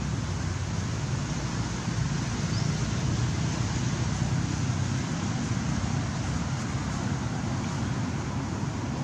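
Steady low rumbling background noise with no distinct event.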